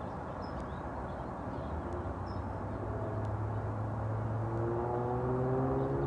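A steady engine drone growing louder over a low background rumble, a low hum joined by several higher tones in the second half. Faint short bird chirps now and then.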